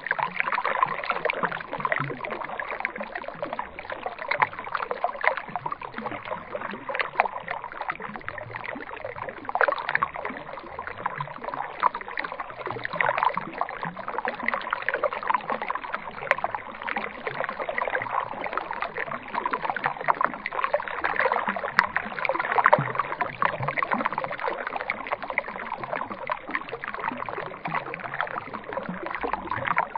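Water sloshing and splashing steadily, with a continuous crackle of small splashes.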